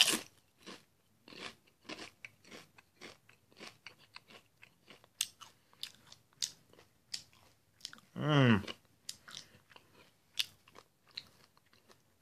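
A Doritos tortilla chip bitten with a loud crunch, then chewed with many short crisp crunches. About eight seconds in comes a brief hummed "mm" from the eater.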